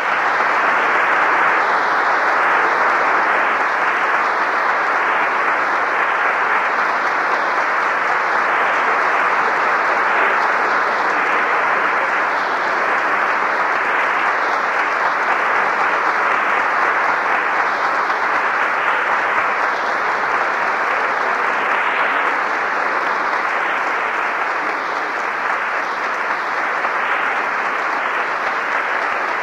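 A church congregation applauding in a long, steady ovation that eases slightly near the end, heard through an old AM radio broadcast recording.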